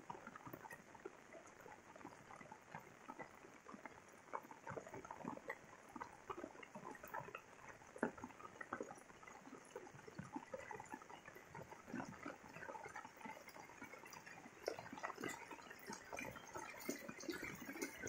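Rain falling: a soft even hiss with many irregular drop ticks and small splashes, growing denser near the end.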